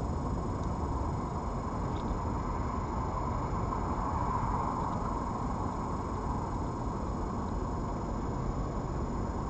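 Steady low rumble and hiss of background noise with a faint high steady whine over it and a couple of tiny ticks; no distinct event stands out.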